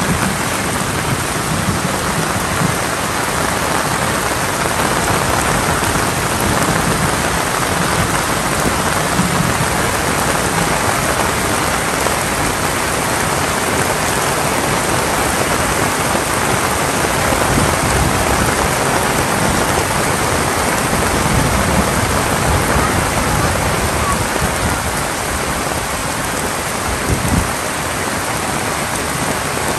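Heavy rain falling steadily, with low rumbles now and then.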